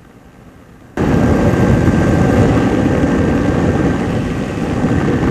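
Ultralight aircraft in flight: its Hirth two-stroke engine and rushing air make a loud, steady noise that cuts in suddenly about a second in, after a near-quiet moment.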